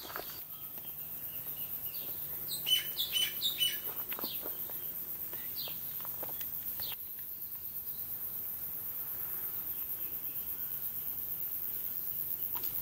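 Forest birds chirping: a quick cluster of short, high chirps about two and a half seconds in, then a few single high notes, over faint steady background noise.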